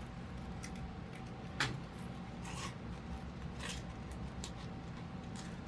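Scissors snipping through paper in short, scattered cuts while trimming closely around a printed cut-out, with one sharper snip about one and a half seconds in.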